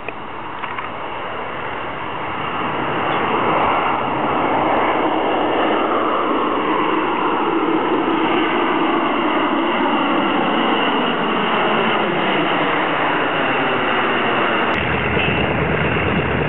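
Formation of four jet aircraft flying over: the engine noise swells over the first few seconds, then holds while a whine slides slowly down in pitch as they pass and draw away. Near the end it cuts abruptly to a PBY Catalina's twin radial piston engines running on the ground, a deep steady rumble.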